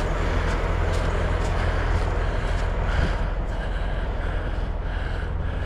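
Roadside noise in a snowstorm: a steady low rumble of passing traffic and wind on a chest-mounted microphone, with faint regular footsteps.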